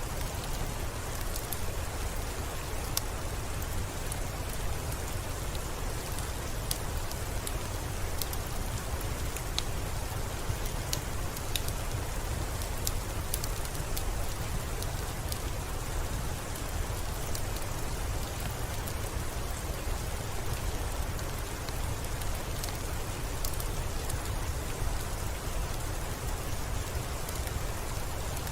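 Steady soft rain with scattered sharp crackles and pops of a wood fire, over a low steady rumble.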